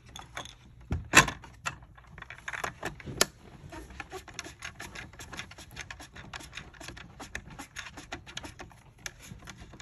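Handling noise of a Garmin LiveScope network cable and its threaded plastic plug being worked into a port on a plastic fish-finder mount: a rapid run of small clicks, rubs and scrapes, with two louder clacks about one and three seconds in.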